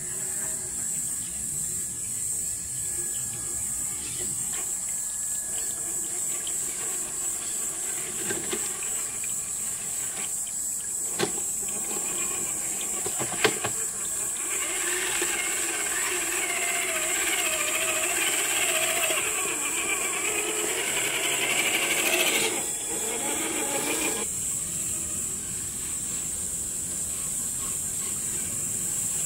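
Traxxas TRX-4 RC crawler's electric motor and geared drivetrain whining as it crawls over rock, the pitch wavering with the throttle for about ten seconds in the middle before cutting off. A steady high hiss runs underneath, with a couple of sharp clicks a few seconds before the whine starts.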